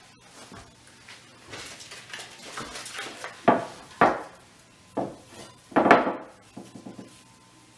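A glass dish knocking and clinking four times as hands dig crumbly corn dough out of it, after a few seconds of rustling.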